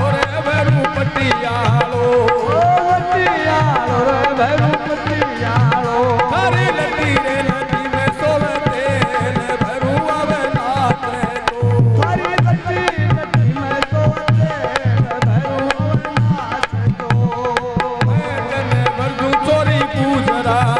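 Rajasthani bhajan played live: a man singing over harmonium and a dholak hand drum keeping a fast, steady beat.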